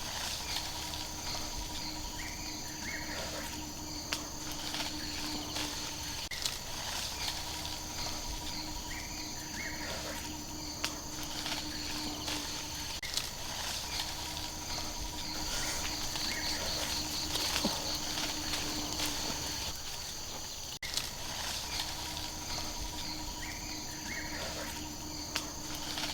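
Forest insects chirring steadily in high bands, with a lower steady drone that stops and starts every two to three seconds and a few faint clicks.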